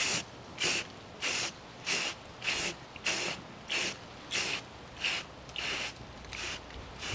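Rust-Oleum aerosol spray paint can hissing in short, even bursts, about one every 0.6 seconds, as paint is sprayed on in quick passes.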